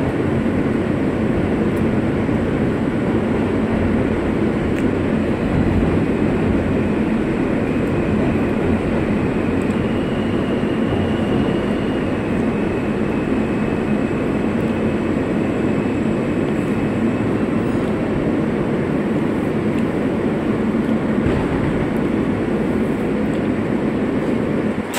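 Interior noise of a moving New York City subway car: a steady rumble of wheels on rails and running gear. A faint high whine comes in about eight seconds in and lasts several seconds.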